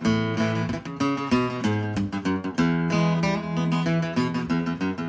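Acoustic guitar strummed in a steady rhythm, chords ringing under each stroke.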